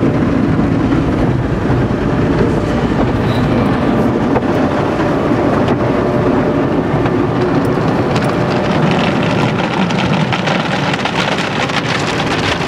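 Automatic car wash heard from inside the pickup's cab: soft-cloth curtains and spinning brushes slapping and rubbing over the glass and body while water sprays on. A steady, loud wash of noise, with a dense patter of small hits that grows thicker in the second half.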